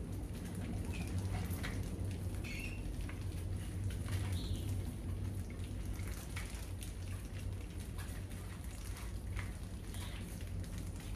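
Many mice scrabbling over a wire-mesh cage trap and a tiled floor: dense scattered ticking of claws on wire, with a few short high squeaks, over a steady low hum.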